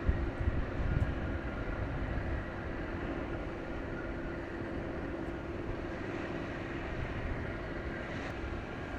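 Hamagumo-class patrol boat's engines running under way, a steady drone with a held hum heard across the water. Low rumbling gusts in the first second or so.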